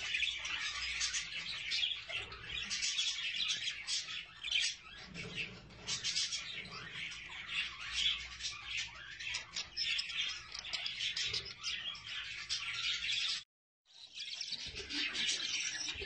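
A group of budgerigars chattering and warbling in a busy, continuous stream of quick chirps. It breaks off for a moment near the end and then resumes.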